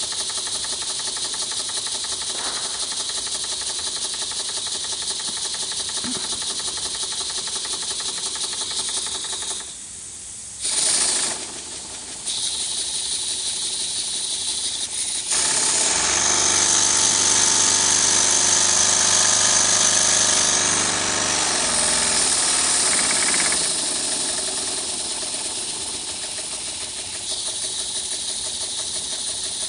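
Small brass twin-cylinder double-acting oscillating engine running on compressed air, with a steady hiss of exhausting air. It drops briefly about ten seconds in, then runs louder and faster for several seconds from about halfway, before settling back to its earlier pace as the throttle valve is worked.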